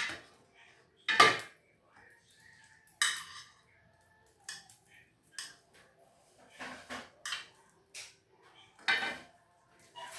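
Dishes and metal utensils clinking and scraping as freshly cooked ugali is served onto plates: a sharp knock about a second in, a longer scrape at about three seconds, scattered lighter clinks, and a louder clatter near the end.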